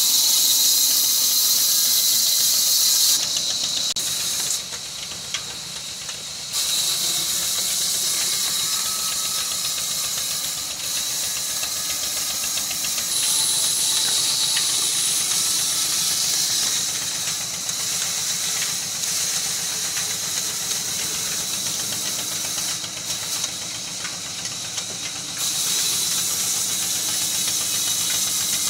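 Diesel-driven band saw mill cutting through a log, a steady high-pitched hiss of the blade in the wood. It is loudest in the first few seconds and again near the end, dipping for a couple of seconds a few seconds in.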